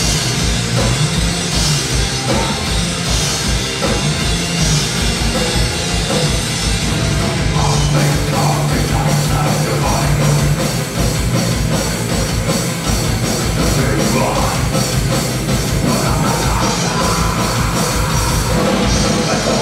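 Black/death metal band playing live: distorted guitars, bass and fast drumming in a continuous loud wall of sound, heard from among the crowd in a reverberant hall.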